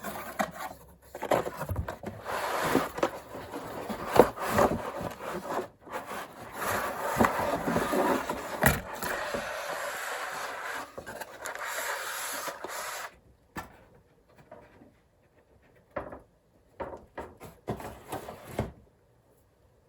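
Contents of a cardboard phone box being handled and pulled out: scraping and rubbing of cardboard and packing with sharp knocks for about thirteen seconds, then a few short, scattered knocks and rustles.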